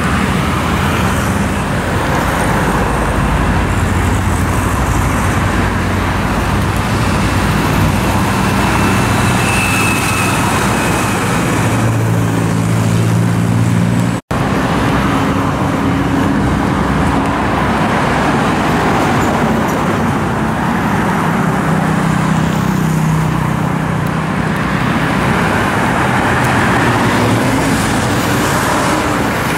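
Steady roadside traffic: small motorcycle and scooter engines mixed with cars and pickup trucks passing close by. The engine sounds rise and fade as vehicles go past. There is a split-second dropout about halfway through.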